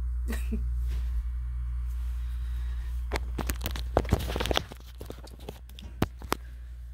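Handling noise of a handheld phone: rubbing, rustling and scattered clicks as it is moved about, thickest a few seconds in. A steady low hum underneath drops away about halfway through.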